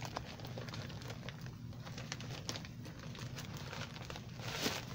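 Plastic mailer envelope crinkling and rustling as it is handled and pulled open, a quick run of small irregular crackles with a louder rustle near the end.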